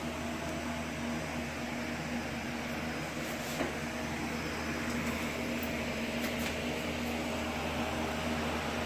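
Desktop diode laser engraver running as it burns a photo into a wood block: a steady whirring hum from its cooling fan and stepper-motor drive, with a few faint ticks near the middle.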